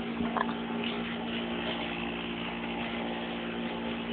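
A steady machine hum: a constant low drone with a faint hiss over it.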